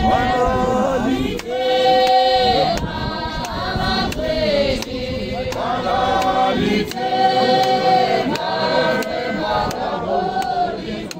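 A large congregation singing a hymn together, in long held notes that come in phrases with short breaks between them.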